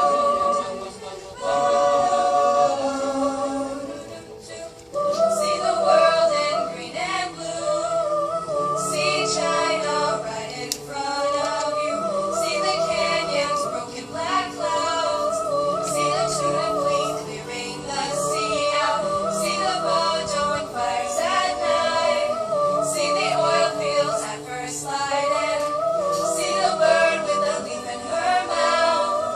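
A cappella student choir singing in close harmony, with held, wordless upper notes that waver in vibrato over a lower line of voices. The singing drops off briefly about four seconds in, then carries on.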